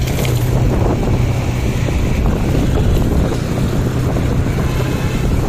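Motorcycle engine running steadily while riding along a road, a constant hum over a low rumble, with wind rushing over the microphone.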